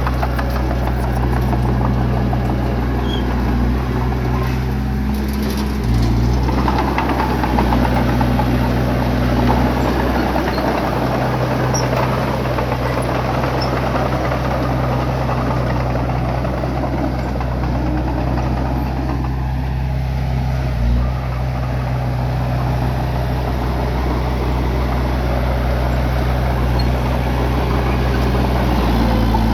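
Bulldozer's diesel engine running steadily at work, with a rougher noise over the engine note. The engine note shifts briefly about six seconds in and again around twenty-one seconds.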